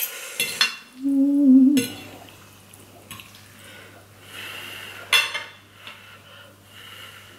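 Fork and spoon clinking and scraping against a plate while twirling spaghetti, with sharp clinks at the start and again about five seconds in. A short hummed, voice-like sound about a second in is the loudest moment.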